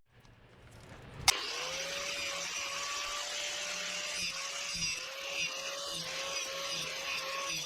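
Angle grinder switched on with a click about a second in, spinning up to a steady whine, then running on the steel stabilizer-link rod, its pitch dipping and recovering again and again as the disc is pressed into the metal.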